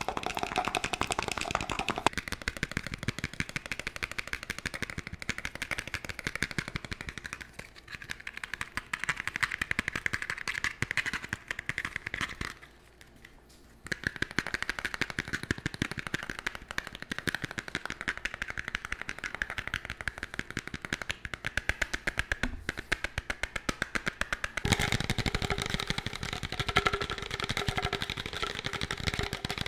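Fast fingertip tapping on plastic tubs and lids held against the microphone, a dense unbroken run of quick taps. It stops for about a second around halfway through, and the tapping sounds fuller for the last few seconds as a different tub is tapped.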